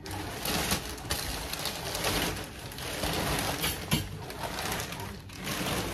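Clear plastic wrapping crinkling and rustling as it is handled, in irregular crackly bursts.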